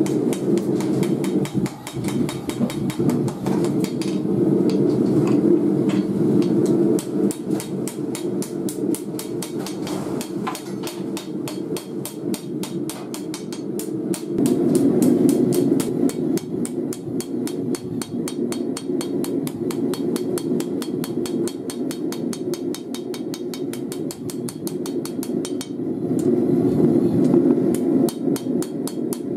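Hand hammer striking a red-hot steel blade, forged from a file, on an anvil in quick, regular blows, flattening the blade and setting the edge. Under the blows runs the steady roar of a propane gas forge.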